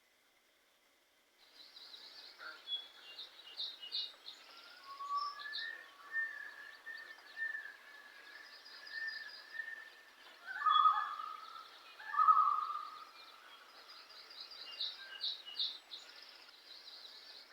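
Outdoor birdsong: rapid high-pitched trills and chirps repeating throughout, with lower whistled calls, and two louder warbling calls about two-thirds of the way through.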